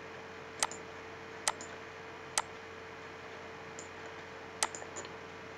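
Computer mouse clicking: four sharp clicks spread over a few seconds, with a few fainter ticks after the last. A faint steady hum and hiss run underneath.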